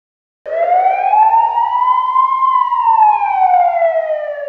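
One long gliding tone that starts about half a second in, rises slowly for about two seconds, then sinks steadily in pitch until it stops, in the manner of a siren.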